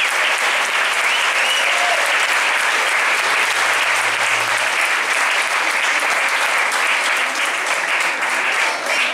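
A large seated audience applauding steadily in a hall.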